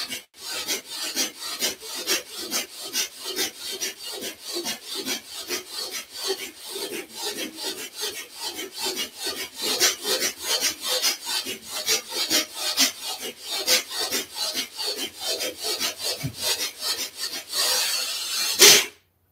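Bhastrika (bellows breath) pranayama: rapid, forceful breaths in and out through the nose, about three to four a second. Near the end comes one long deep inhalation, then the sound stops as the breath is held.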